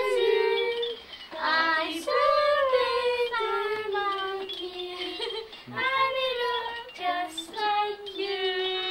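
High voices singing a slow tune in long held notes, phrase after phrase with short breaks between them.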